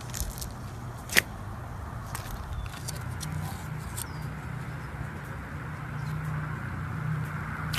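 Slime being handled and squeezed, giving sharp pops and clicks, the loudest about a second in, with smaller ones over the next few seconds. A steady low hum runs underneath.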